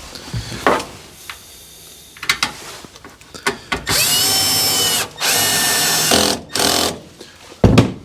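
Drill driver driving the last fixing screw home: two runs of about a second each, the motor whine rising to speed and then holding, then a short final burst.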